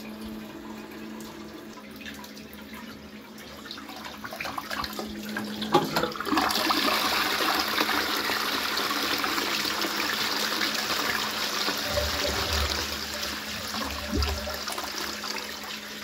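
Qualitas Versailles close-coupled toilet with a Fluidmaster Pro dual-flush siphon. The cistern hisses quietly as it refills. About six seconds in there is a click, then the flush rushes loudly into the pan for about nine seconds and dies away near the end.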